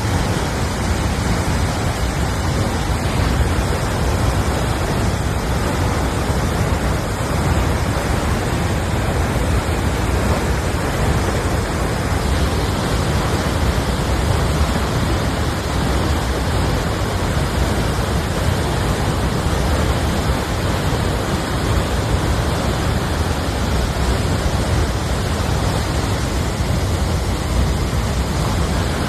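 Steady, loud rushing of a lahar, a flow of volcanic mud and ash debris, cascading down a waterfall, heaviest in the low end.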